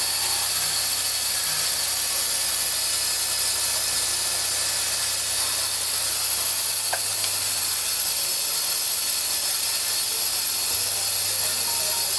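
Prefilled-syringe filling machine running: a steady mechanical hiss with a low hum beneath it, and one sharp click about seven seconds in.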